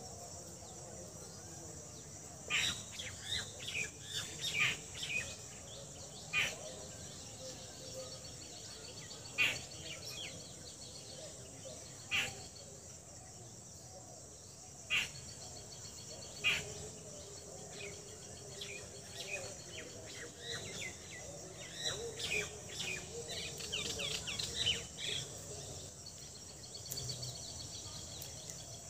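Birds chirping on and off, some calls in quick trills, over a steady high-pitched insect drone. A few short sharp clicks stand out among the calls.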